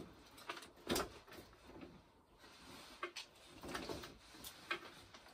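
A few knocks and scrapes of a hinged cold-frame lid being lifted and lowered on its wooden box, the loudest knock about a second in.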